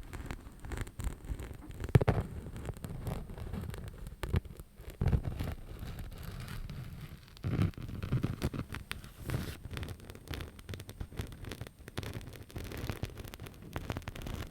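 Close-miked scratching and tapping on a small object, with irregular clicks and scrapes and some low thuds of handling. One sharp knock about two seconds in is the loudest sound.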